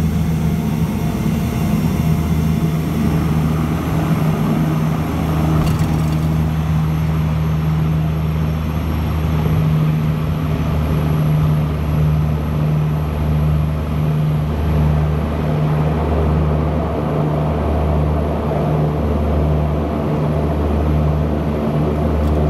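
Twin Garrett TPE331 turboprops of a Turbo Commander heard from the cockpit during landing: a steady propeller and engine drone with a faint high turbine whine, and a brief knock about six seconds in as the wheels touch down. During the rollout the drone pulses in a slow throb about once a second, the beat of the two propellers turning at slightly different speeds.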